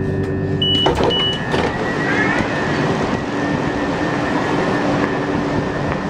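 A train coming into an underground station platform from the tunnel: its running noise swells about a second in and stays as a steady rumble and hiss. Two short high beeps sound just before the swell.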